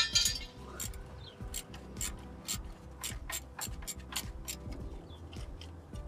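Quiet background music under a run of sharp metallic clicks, a few a second, with a louder clatter right at the start.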